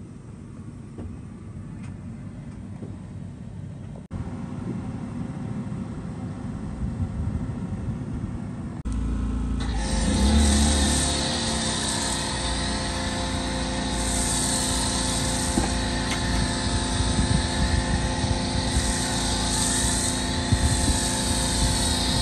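Pressure washer running: a steady motor drone under the hiss of a water spray hitting a car's paint, starting about ten seconds in after a quieter low rumble.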